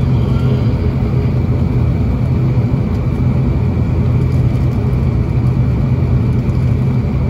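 Pratt & Whitney PW127 turboprop engines of an ATR 72-600, heard from inside the cabin: a steady drone with a strong low hum that holds one pitch and loudness, the engines running at steady low power on the ground before the take-off run.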